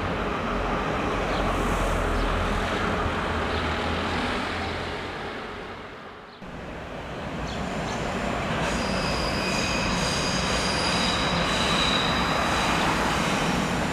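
Berlin S-Bahn electric train running over an elevated railway bridge: a steady rumble that fades out about six seconds in and then starts again suddenly. In the second part several high steady whining tones sound over the rumble.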